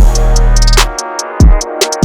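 Background electronic music with heavy bass and a drum-machine beat; the bass drops out briefly in the second half.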